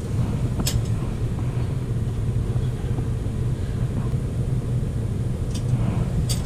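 Furnace running steadily with a low rumbling hum, with a few light clicks about a second in and twice near the end.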